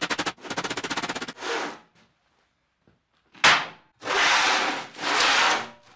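A hand hammer tapping over the edge of a sheet-steel box in a fast run of light blows, about ten a second, that stops a little over a second in. A single sharp clank follows, then the steel box is slid across the metal bench top twice, scraping.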